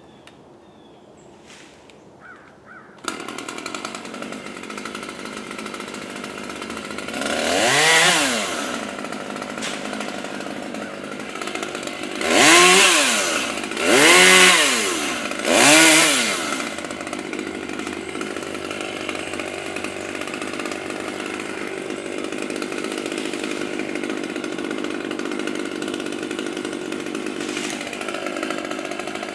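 Chainsaw starting up about three seconds in, revved four times with the pitch rising and falling, then running steadily.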